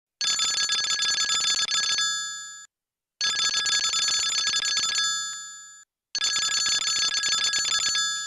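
Telephone bell ringing three times, each ring a fast metallic trill about two seconds long that stops and rings away before the next.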